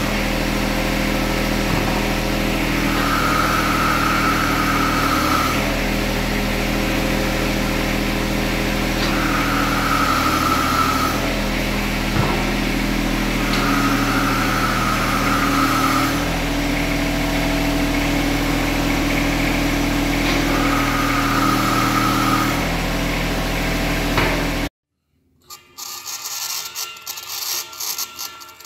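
Compact diesel tractor running steadily, with four spells of a higher hydraulic whine, each about two seconds long, as the lawn roller's hydraulic wheel-lift cylinder is worked; the engine note shifts as the load changes. The sound cuts off suddenly near the end, and quieter handling sounds follow.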